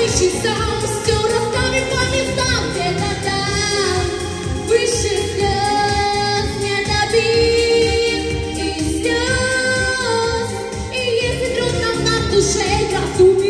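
A young woman singing a pop song into a microphone over backing music with a steady beat, holding some notes for a second or two.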